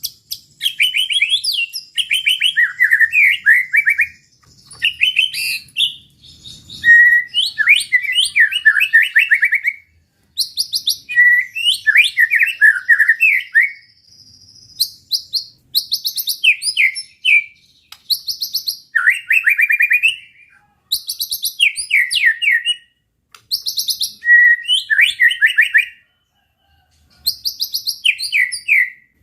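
White-rumped shama (murai batu) in full song: loud, varied phrases of rapid notes sweeping up and down, one burst after another with short pauses between.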